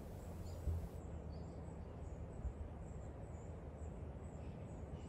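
Garden ambience: a steady low rumble with faint, high chirps repeating every fraction of a second, and a single soft thump less than a second in.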